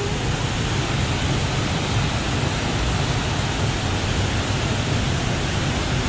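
Steady rush of a waterfall pouring into a rocky pool, an even, unbroken roar of water.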